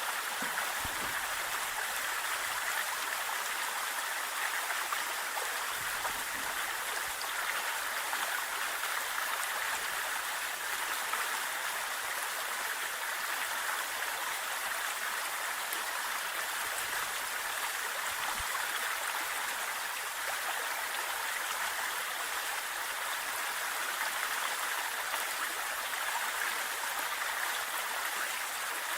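Forest waterfall, its water rushing and splashing in a steady, even hiss.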